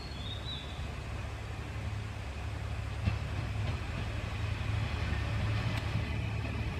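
JR Shikoku 1000 series single-car diesel railcar approaching slowly, its engine running with a low rumble that grows louder as it nears, with a single knock about three seconds in. A bird chirps briefly at the start.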